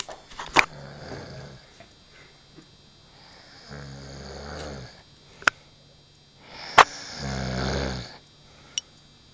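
A man snoring in his sleep: three rough, low snores a couple of seconds apart, the first faint and the later two louder and about a second and a half long. Several sharp clicks fall between and over the snores.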